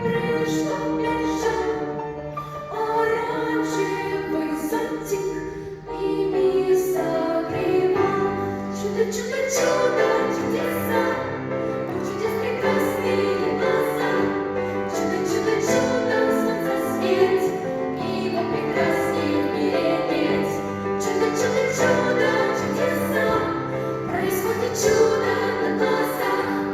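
A vocal ensemble singing a song over musical accompaniment, the music filling out about six seconds in.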